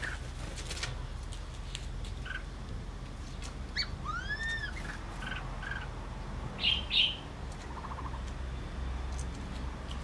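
Black-throated laughingthrushes calling: scattered short chips, a clear whistle that rises and falls about four seconds in, and the loudest two notes about seven seconds in, followed by a brief fast rattle.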